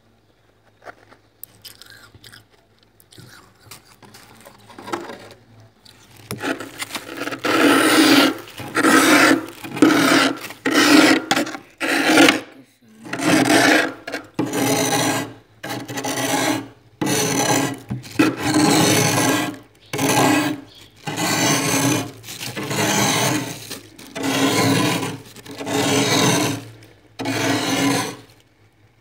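Thick freezer frost being scraped off the walls. After about six seconds of faint scratching comes a loud, even run of scraping strokes, roughly one a second, stopping just before the end.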